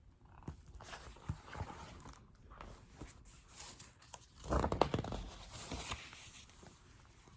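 Paper rustling and soft handling clicks as a picture book's pages are handled and turned, with one louder rustle about four and a half seconds in.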